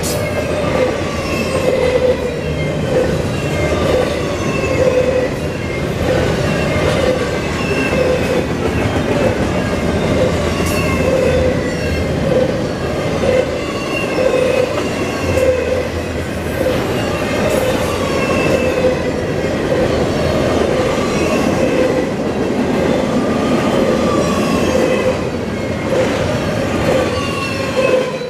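Double-stack intermodal freight cars rolling past at speed: a steady rumble and clatter of steel wheels on rail, with short high wheel squeals recurring every second or so. The sound drops off right at the end as the last car passes.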